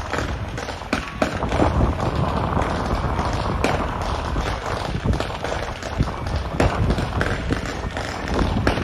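Loud, dense din from a temple procession, with irregular sharp bangs and knocks over a continuous noisy background.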